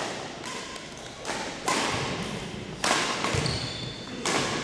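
Badminton rackets striking the shuttlecock during a doubles rally: four sharp hits about a second or more apart, each echoing in the gym.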